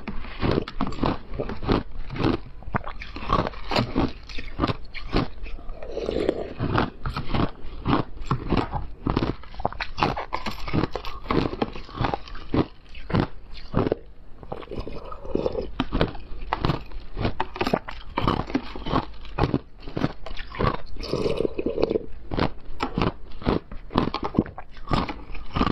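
Close-miked crunching of ice being bitten and chewed, a rapid irregular run of sharp crunches, mixed with a metal spoon chipping and scraping at frozen ice in a plastic container.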